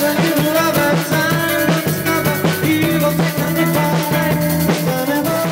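Rock music playing, a full band with a drum kit keeping a steady beat.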